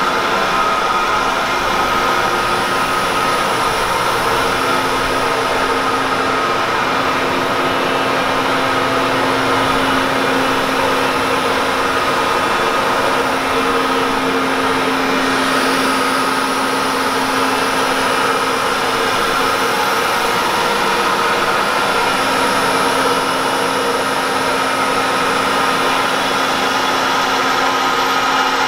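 Steady machine hum with a few held whining tones from a powered-up Citizen L20 CNC Swiss-type screw machine. Its pumps and fans run without a break, with no cutting heard.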